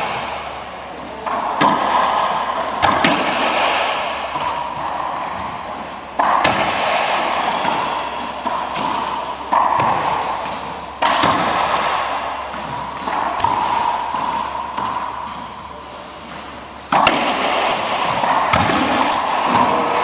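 Racquetball being struck and bouncing in an enclosed court: a sharp smack every few seconds, each followed by a hollow echo that dies away slowly.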